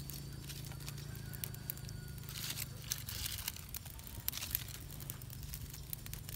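Small wood cooking fire crackling, with irregular sharp snaps and pops over a steady low hum.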